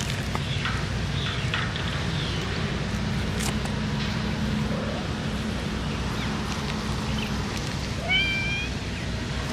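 A stray cat meowing: one clear, short meow about eight seconds in and a few fainter mews in the first two seconds, over a steady low rumble.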